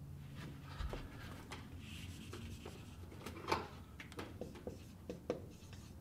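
Faint rubbing of a whiteboard eraser wiping words off the board, with a few light clicks and taps.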